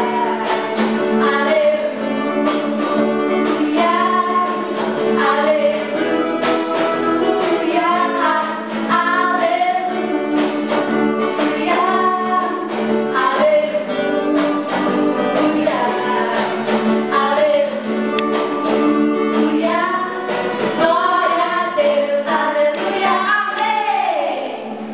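Female voices singing an upbeat children's worship song over instrumental backing with a steady beat. Near the end the voices slide down in pitch and the music stops.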